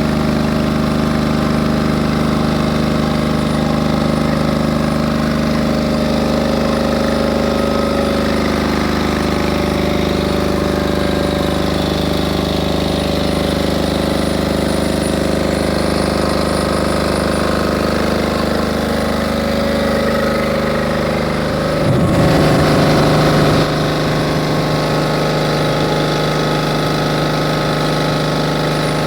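A 6.5 kVA silent diesel generator running steadily, its diesel engine clattering. About three quarters of the way through, its sound changes abruptly and is briefly louder before settling into a steady run again.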